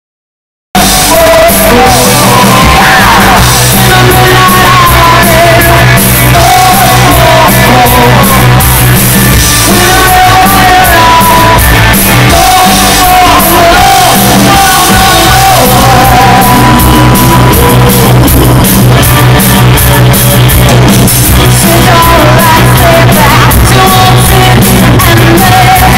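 Live rock band playing at full volume: a woman singing lead over drums and electric guitar. It starts abruptly under a second in.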